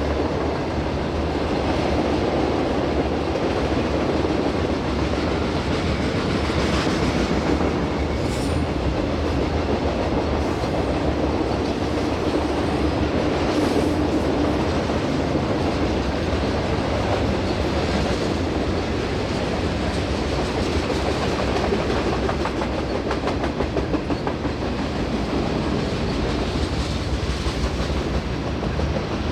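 Freight cars rolling past on steel wheels: a steady, continuous sound of wheels running on the rails as boxcars and refrigerated cars go by.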